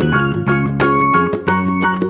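Background music led by a keyboard instrument, with the notes changing several times a second.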